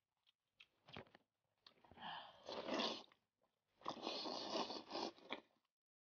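Close-miked chewing and crunching on spicy beef knuckle bone, gnawing the meat and gristle off it. A few sharp clicks come first, then two longer stretches of dense crunching.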